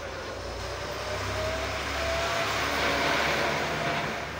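A motor vehicle passing by, its engine and road noise growing louder to a peak about three seconds in, then fading.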